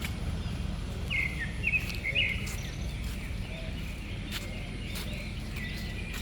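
A few short, high bird chirps, mostly in the first half, over a steady low rumble, with a few faint clicks.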